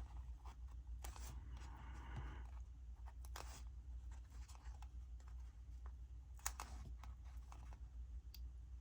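Faint rustling and light clicks of small paper stickers being peeled off a sticker sheet and pressed onto planner pages, over a low steady hum.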